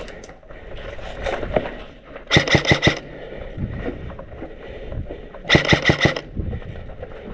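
Airsoft electric rifle firing two short full-auto bursts of rapid mechanical clacks, one a bit over two seconds in and another about five and a half seconds in.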